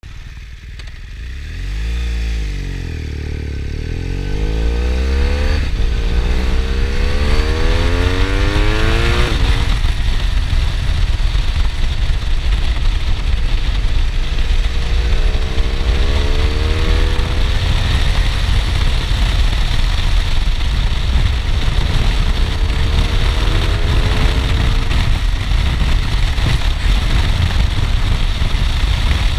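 BMW R1200R boxer-twin engine through an Akrapovič titanium exhaust, heard from the rider's seat, pulling away and accelerating hard through the gears with rising pitch, shifting about five and nine seconds in. It then cruises with a couple of shorter pulls, under heavy wind rumble on the microphone.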